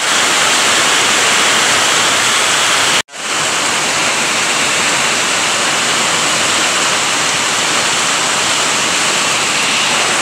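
Heavy rain pouring down in a steady dense hiss. The sound cuts out for an instant about three seconds in and comes straight back.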